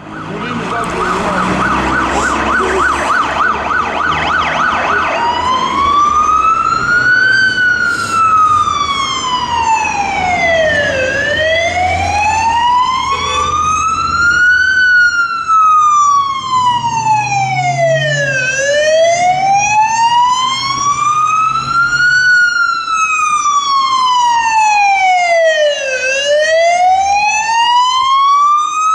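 Fire service Dennis Dart command support unit sounding its siren on an emergency run. It gives a fast yelp for about the first five seconds, then switches to a slow wail that rises and falls, each sweep taking nearly four seconds. The truck's diesel engine runs underneath.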